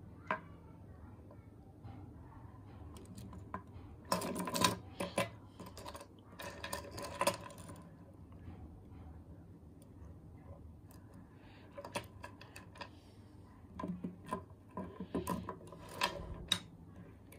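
Carved ivory beads and silver-framed pendants of a necklace clicking against each other and knocking lightly on a wooden tabletop as the necklace is handled and laid out. The clicks come in several short clusters.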